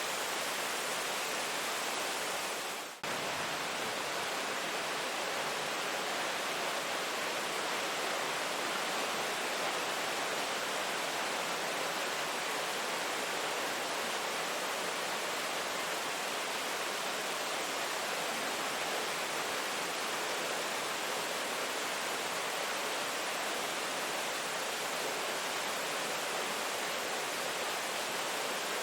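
Steady rain, an even hiss with no rhythm or pitch, dipping briefly about three seconds in.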